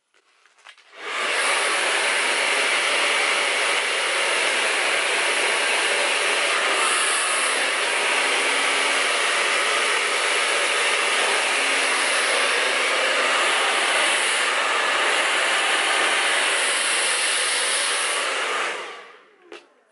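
Hand-held hair dryer blowing steadily. It is switched on about a second in and winds down near the end.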